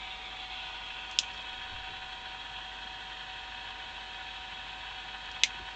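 Hiss from a germanium-diode noise generator amplified by two transistor stages, played through a small transistor-radio loudspeaker; the hiss is strongest around 4 kHz, with a steady mains hum underneath. Two sharp clicks, about a second in and near the end.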